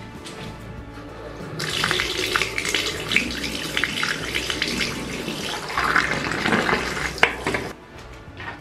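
Shower water spraying into a bathtub, a dense hiss that starts about one and a half seconds in and cuts off near the end, over background music.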